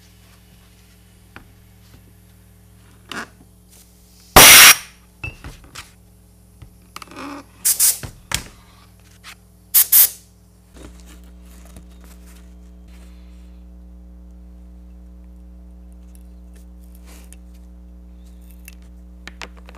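Pressurized spray hissing in several short loud bursts during the first half, with small clicks of parts being handled between them. About halfway through, a steady low hum grows louder.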